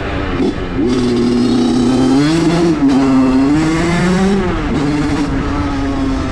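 Small motorcycle engine revving up and down under throttle. It dips briefly about half a second in, climbs and wavers at higher revs for a couple of seconds, then settles back to a steadier note near the end.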